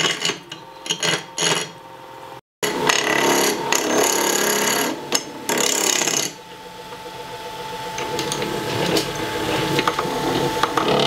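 Wood lathe turning a square wooden stopper blank while a gouge cuts it from square to round: a loud, rough cutting noise from about two and a half seconds in, becoming steadier from about six seconds in as the corners come off, with the lathe motor's hum underneath.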